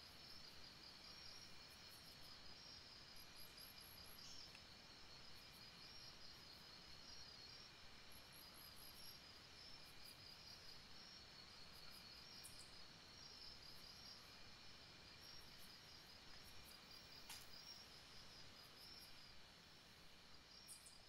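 Near silence: faint background hiss with a soft, steady, rhythmic high chirping like crickets, and a faint click about three quarters of the way through.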